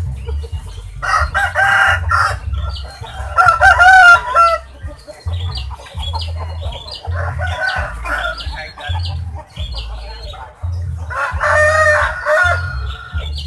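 Rooster crowing several times, with clucking between the crows; the loudest crow comes about four seconds in.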